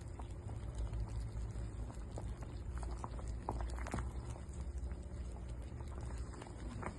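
A pot of water boiling on the stove as a steady low rumble, with scattered light clicks and taps throughout. The cilok tapioca dumplings in it are cooked.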